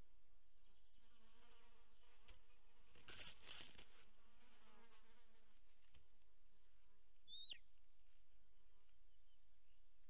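Faint insect buzzing close to the microphone, wavering in pitch. A brief rustle comes about three seconds in, and a single short, high bird call that falls in pitch comes about seven and a half seconds in.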